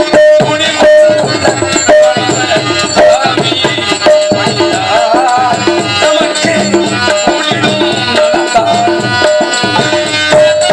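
Live folk music: tabla and a barrel hand drum playing a brisk, continuous rhythm, with a melody line and a repeated held note above the drumming.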